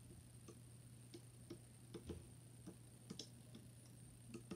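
Faint, irregular light clicks of a plastic loom hook and rubber bands on the loom's plastic pegs, over a steady low hum.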